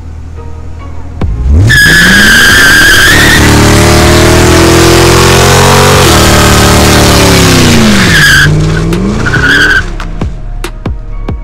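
1999 Ford Mustang GT's 4.6-litre V8 revving hard through a burnout, the rear tyre squealing as it spins. The revs climb about a second in and hold high. They fall and climb again near the end with more short squeals, then cut off.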